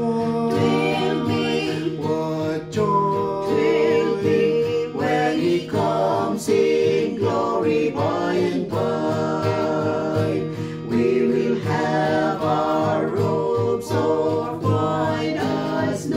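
Three voices, a man and two women, singing a hymn together to a strummed acoustic guitar.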